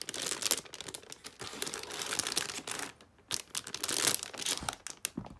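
Clear plastic bags crinkling as plastic model-kit runners sealed inside them are handled and turned over. The rustling comes in irregular bursts, with a short pause about three seconds in.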